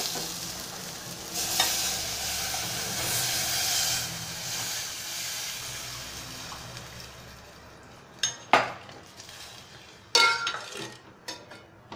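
A steel saucepan of cooked fenugreek leaves sizzling while a steel spoon stirs and buttermilk is poured in; the sizzle fades away over the first several seconds. Near the end the spoon clinks sharply against the pot a few times.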